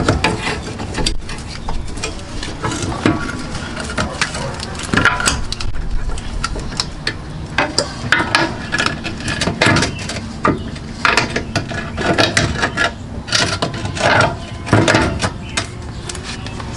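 Irregular metallic clicks, clinks and knocks as a new engine mount and its bolt are worked into place by hand under the car.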